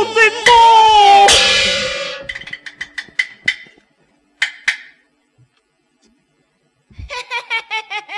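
Chinese opera percussion closing a sung line: a held sung note ends under a loud cymbal crash that rings on. Quick wooden strikes follow and speed up, then two more strikes, a pause, and a fresh run of rapid strikes near the end.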